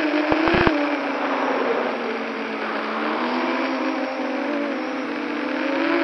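FPV quadcopter's electric motors and propellers whining. The pitch sinks through the middle as the throttle is eased off and climbs again near the end as power comes back. A few short clicks in the first second.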